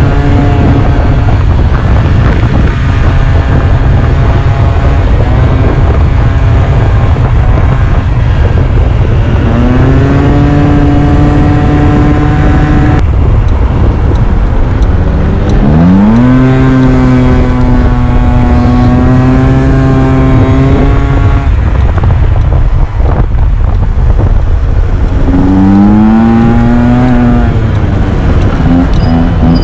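Scooter engine heard from on board, under heavy wind buffeting on the microphone. Three times its pitch climbs and then holds steady as it pulls away and cruises.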